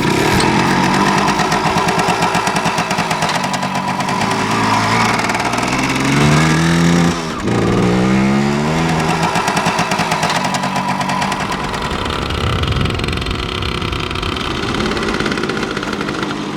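1978 Kawasaki KE100's single-cylinder two-stroke engine running, with the revs rising around the middle.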